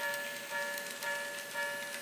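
Grade-crossing bell sounding for a model railroad crossing, a pitched ding repeating evenly about twice a second.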